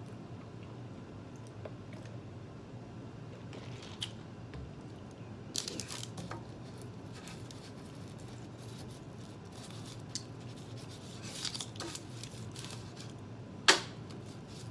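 Scraping and rustling as a crisp, cracker-shaped stuffed Cheez-It pizza piece is handled on a paper-covered tray and broken apart, with a few small clicks and one sharp snap of the crust near the end. A low steady hum runs underneath.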